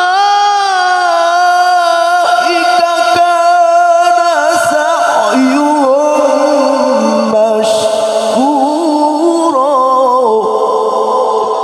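A man reciting the Qur'an in melodic tilawah style into a microphone. He holds long drawn-out notes and moves through wavering ornamental runs, first stepping down in pitch and then climbing again. The phrase ends about ten seconds in with an echoing tail.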